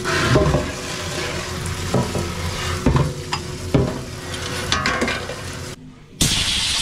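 Tap water running into a stainless steel sink while a bicycle cassette is rinsed and handled, with a few sharp knocks of metal against the sink. Near the end the sound drops out briefly and a steady hiss follows.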